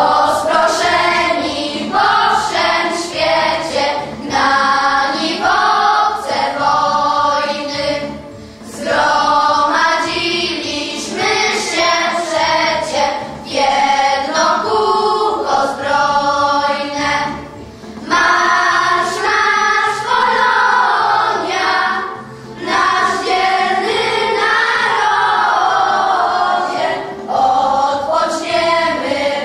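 A children's choir singing a song together, phrase after phrase, with short pauses for breath between some phrases.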